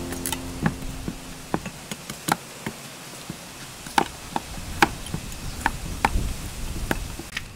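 Cleaver shaving the hard skin off a whole pumpkin against a wooden chopping block: irregular sharp knocks and scrapes, about two a second.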